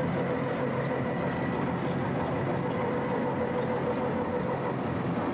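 Auto-rickshaw's engine running steadily as it drives along a road, heard from inside the open cab, with a steady whine over the engine noise.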